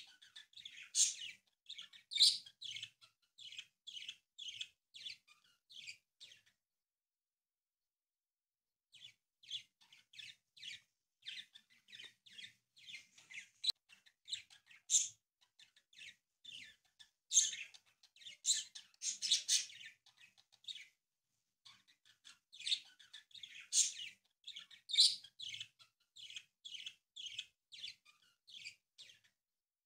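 A small bird chirping in quick runs of short high notes, two or three a second, breaking off for a couple of seconds partway through.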